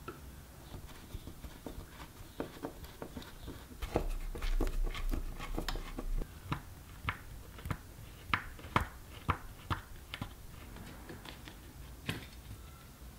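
Hand screwdriver undoing the small screws that hold a turret board to its metal standoffs: a string of light metal clicks and taps, with a stretch of low handling noise about four to six seconds in.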